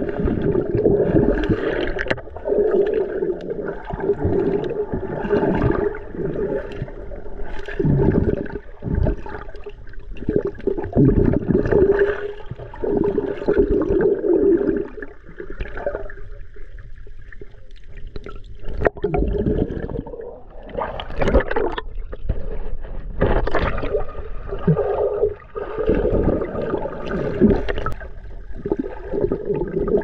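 Muffled underwater water noise picked up by a submerged action camera: irregular sloshing and gurgling surges as the water moves around the camera, easing off for a few seconds past the middle.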